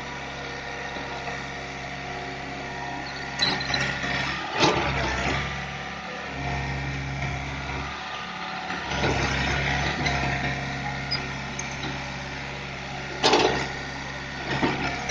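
Excavator engine running steadily, with a few sharp metallic clanks and knocks, the loudest about thirteen seconds in.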